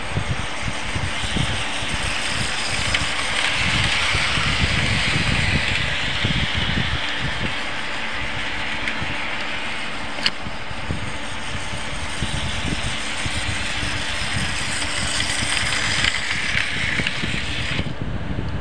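HO scale model train running on its track close to the microphone: a steady whir with rattling of the wheels over the rails, and a single sharp click about ten seconds in.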